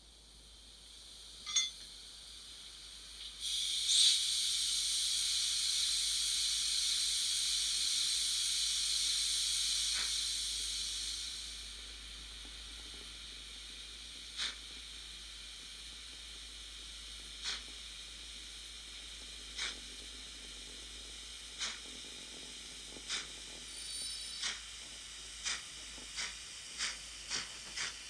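Digital steam sound from the decoder of an N-scale Fleischmann BR 98 steam tank locomotive starting off at a crawl. A steady steam hiss runs for about eight seconds, then short exhaust puffs begin a few seconds apart and come faster and faster as the locomotive gets moving.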